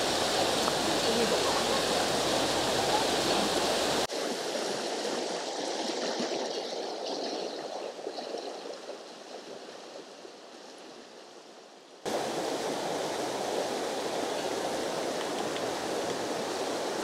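Mountain stream rushing over rocks: a steady watery rush, heard in three cuts, quieter and fading from about four to twelve seconds in, then full again.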